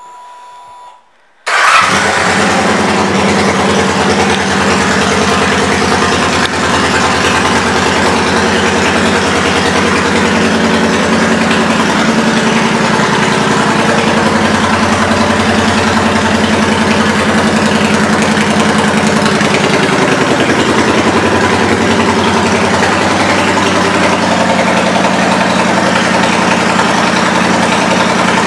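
2008 Kawasaki Vulcan 900 Classic's V-twin engine, breathing through aftermarket exhaust pipes, comes in suddenly about a second and a half in and idles loudly and steadily. The idle settles slightly lower about twenty seconds in.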